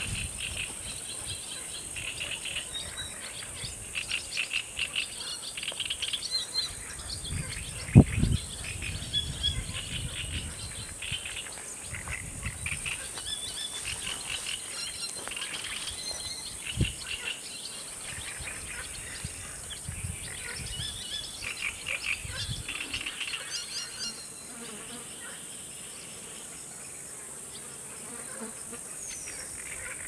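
Pond-side nature ambience: insects chirping with a steady high-pitched hum, and rapid chattering animal calls. A sharp thump comes about eight seconds in, and a smaller one near the middle.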